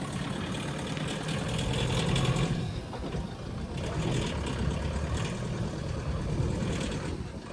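A vehicle's engine running as the car sets off and drives slowly over rough ground, slightly louder about two seconds in.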